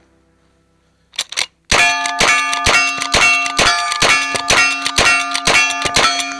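Uberti 1866 Yellowboy lever-action rifle, loaded with smokeless .44-40 ammunition, fired in a rapid string, two quick clicks from the action coming first. Sharp shots and hits land several times a second, and the struck steel targets keep ringing between them.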